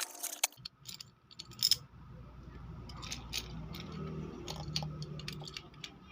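Scattered light clicks, knocks and rattles of small items being handled, over a low steady hum that starts about half a second in.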